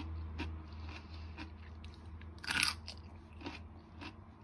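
Someone biting into and chewing a home-made pickled cucumber: one loud crunch about halfway through, among several smaller crunches. The crunch is the sign of a crisp, firm pickle.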